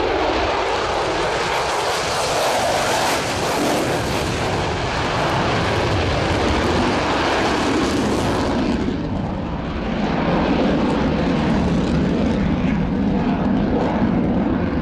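Lockheed Martin F-22A Raptor's twin F119 jet engines running loud as the fighter flies past; the hissing top end fades about eight and a half seconds in, leaving a deeper rumble.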